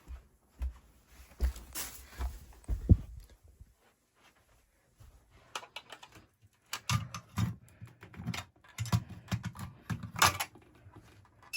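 Irregular clicks, taps and low thumps of handling noise, with a near-silent stretch of about a second in the middle.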